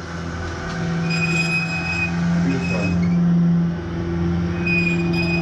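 Hand-cranked bunker ventilation fan being turned, its blower whirring with a steady low hum and a high squealing whine that comes and goes. It is the manual fresh-air supply for when the generator fails, and it is still in good working order.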